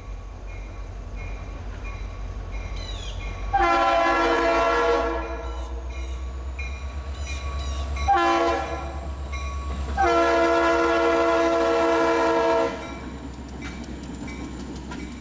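CSX diesel locomotive's air horn sounding for a grade crossing: a long blast, a short one, then another long one, over the low rumble of the approaching engine.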